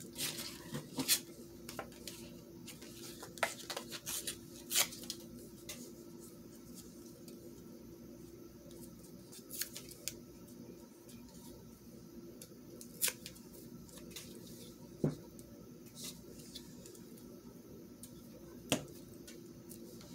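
Small paper scraps handled by hand and pressed onto a card while gluing: scattered sharp clicks and light rustles, most of them in the first five seconds, over a faint steady hum.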